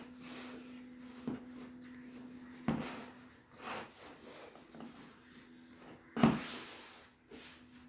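Vinyl seat cover being pulled, rubbed and smoothed by hand over a foam motorcycle seat. The handling is broken by two thumps, one about three seconds in and a louder one about six seconds in.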